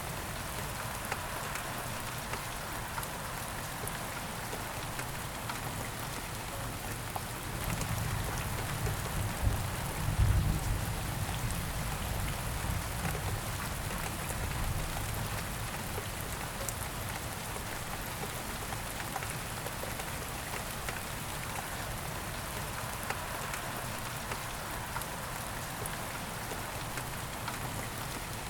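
Steady rain falling and pattering, with fine drop ticks throughout. A low rumble swells about a quarter of the way in, briefly the loudest sound, then fades back under the rain.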